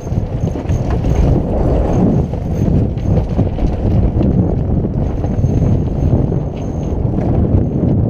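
Wind buffeting the microphone on a sailboat under way: a loud, uneven low noise with no letup.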